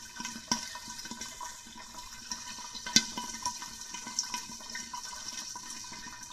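Hot oil in a covered wok sizzling and bubbling steadily around popcorn kernels that have not yet begun to pop, with a few sharp crackles, the loudest about three seconds in.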